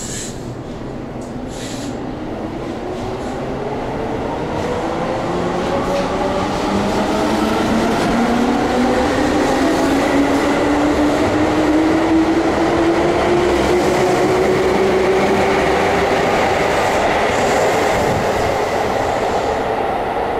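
Keihan electric train pulling out of an underground platform: its traction motors whine in several tones that climb steadily in pitch as it accelerates, over rolling wheel and rail noise that grows louder.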